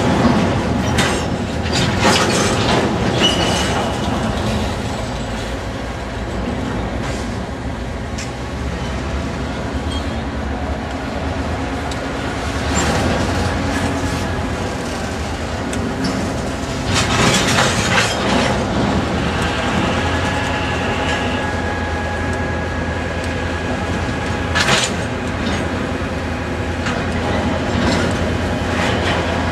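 Freight train rolling past, its wheels knocking over rail joints, with a few brief high wheel squeals.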